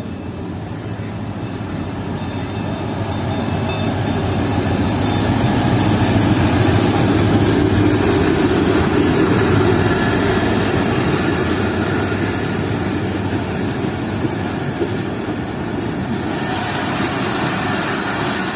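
Passenger train hauled by an HGMU-30 diesel-electric locomotive arriving along a station platform. The locomotive passes and its coaches roll by, the rumble swelling to its loudest about halfway through. A steady high squeal from the train runs through it.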